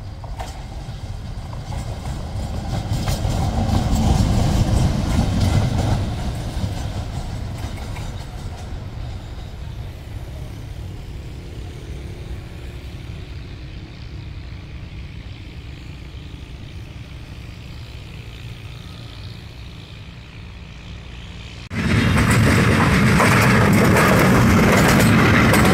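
A diesel locomotive hauling a train of hopper wagons rumbles past, its engine and wheels on the rails loudest about four seconds in, then slowly fading. Near the end the sound switches abruptly to a much louder, closer rumble of a GE GEU-40 diesel-electric locomotive running past.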